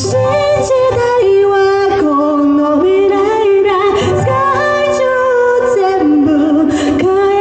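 A woman singing live into a microphone over backing music, amplified through stage PA speakers; long held notes step from pitch to pitch.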